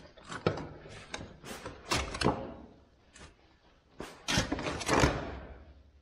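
A manure fork jabbed into a load of manure inside a steel manure spreader box, with a string of irregular knocks and scrapes, the loudest about two seconds in and between four and five seconds in. The spreader is being emptied by hand because its floor chain has jumped off.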